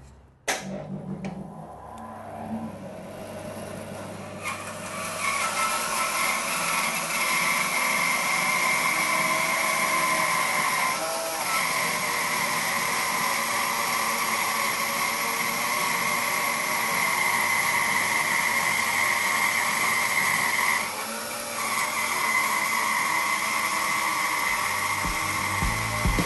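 Record Power BS400 bandsaw, with a 2 hp motor, set going about half a second in and running lightly for a few seconds. Then the blade bites into a birch log at the saw's full 305 mm depth of cut, and a loud, steady cutting noise with a whine holds, dipping briefly twice.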